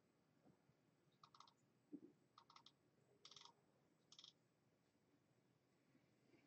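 Near silence with a few faint, short clicks spaced about a second apart.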